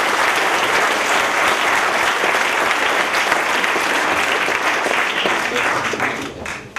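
Lecture audience applauding the end of a talk: dense, steady clapping that thins out and dies away near the end.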